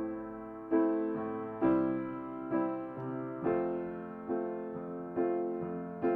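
Piano playing slow chords, struck about once a second, each one ringing and fading before the next.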